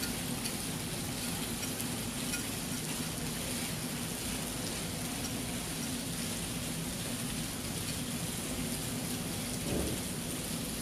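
Steady outdoor wash of noise with a low hum underneath, and a brief soft low thump near the end.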